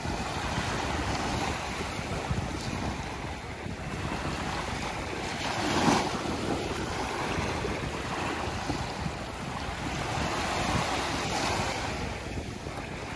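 Small waves washing up onto a coarse sand shore and draining back, with one louder breaking wash about six seconds in. Wind buffets the microphone throughout.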